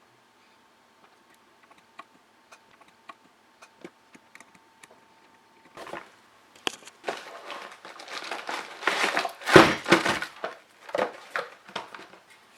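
Scattered light clicks and taps of small parts being handled. From about six seconds in comes a stretch of plastic packaging crinkling and rustling with sharp crackles, loudest near ten seconds.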